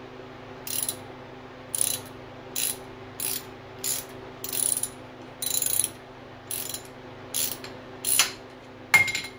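Hand ratchet and socket running in a camshaft timing-gear bolt on a Chevy 350 small-block V8: eleven short bursts of pawl clicking, a little over one a second. The last, near the end, is the sharpest and loudest.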